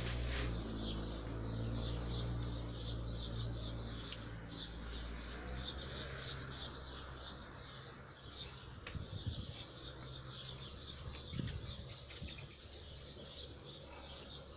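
A small bird chirping over and over, short high chirps at about four a second. A low steady hum underneath fades away about six seconds in, and there are a few soft knocks later on.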